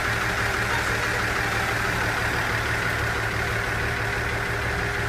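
Aizu Railway diesel railcar standing at the platform with its engine idling: a steady low drone with a constant hiss above it.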